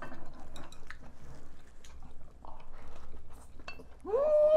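Eating sounds: chopsticks and spoons clinking against ceramic bowls, with chewing and small mouth noises. Near the end comes a loud, drawn-out 'mmm' of enjoyment, rising then falling in pitch.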